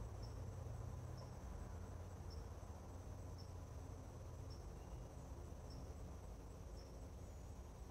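Faint crickets: a steady high trill with a short high chirp about once a second, over a low steady hum.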